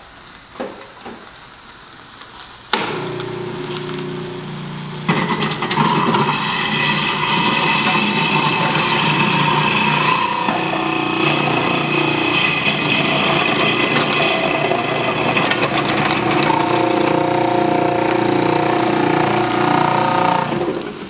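Electric food processor running with its grater disc, switching on about three seconds in with a steady motor hum. It gets louder about two seconds later as whole carrots pushed down the feed tube are shredded, then stops just before the end.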